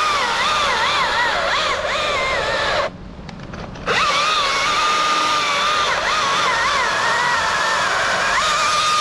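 Chainsaw running at high revs through a large cut, its pitch wavering up and down as the chain loads and frees in the wood. It drops out for about a second around three seconds in, then comes back on and runs at a steadier pitch.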